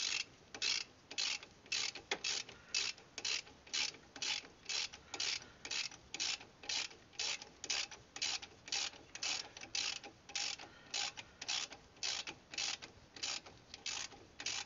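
Ratchet wrench being worked back and forth on a brake caliper bolt, its pawl clicking in a quick rattle on each backswing, about two strokes a second.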